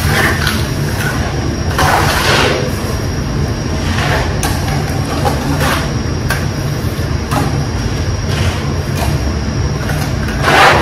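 Steady low rumble of a building's HVAC ventilation, with several short scraping swipes of a trowel and hands working a wet scratch coat of mortar onto a masonry wall.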